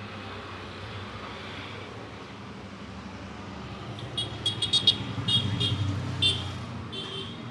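Roadside traffic: a motor vehicle's engine swells as it passes close by, and a horn sounds in a quick run of short, high-pitched beeps through the second half.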